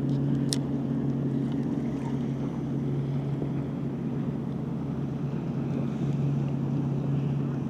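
Steady low hum of a boat's motor, with wind noise on the microphone and a single sharp click about half a second in.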